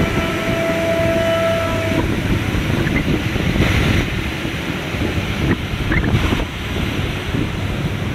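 Passenger coaches of an intercity train rolling past: a steady rumble of steel wheels on the rails. A thin steady whine runs for about the first two seconds, and a couple of brief high squeaks come near the end.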